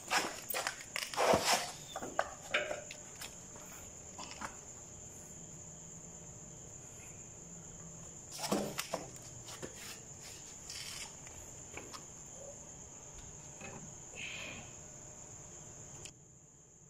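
A cricket trills steadily and high-pitched. Over it come scattered metal knocks and clinks as the diesel injection pump is handled and fitted to the engine; they are loudest in the first two seconds and again about eight and a half seconds in.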